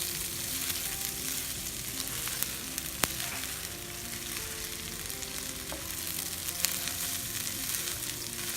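Drained rice and red lentils sizzling as they fry in hot oil with onions and spices, with a few light clicks of stirring, the sharpest about three seconds in.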